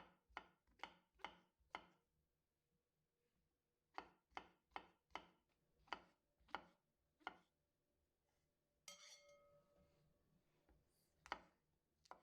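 Knife chopping food on a cutting board: a run of about five even strokes, a pause, then eight more at a steady two or so a second. A short scrape follows, then one last chop near the end.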